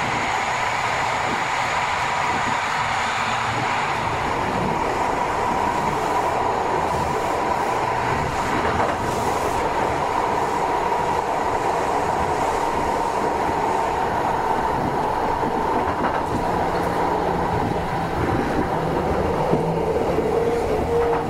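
Yokohama Municipal Subway Type 10000 train running, its Mitsubishi IGBT-VVVF inverter and linear motors giving a steady high whine over the wheel and running noise. Near the end a lower tone comes in.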